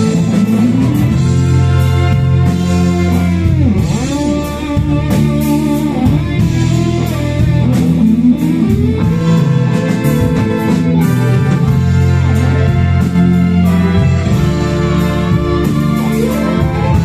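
String orchestra of violins and cellos playing held, sliding melodic lines over a steady rhythmic accompaniment.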